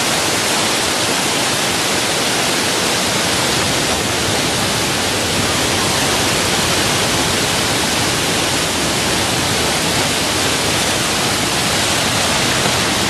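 Waterfall rushing: a loud, steady hiss of falling water with no change through the stretch.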